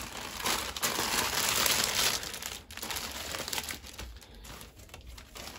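Parcel packaging crinkling and rustling as a delivered order is unwrapped by hand. The rustle is loudest for the first couple of seconds, then goes on more softly.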